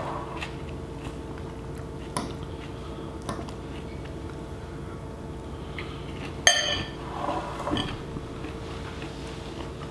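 A metal fork clicking against a ceramic bowl while someone eats. About two-thirds of the way in, the fork is set down in the bowl with one sharp, ringing clink.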